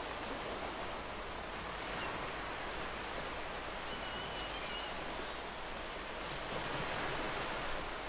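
Gentle ocean waves breaking and washing up a sandy beach: a steady surf hiss that swells a little near the end.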